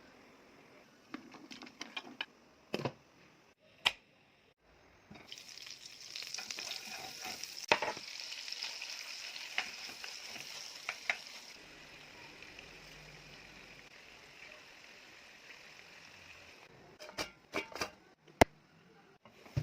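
Food sizzling as it fries in a pan, a steady hiss that starts about five seconds in and eases off past the middle, with sharp clicks and taps from cooking utensils before and after it.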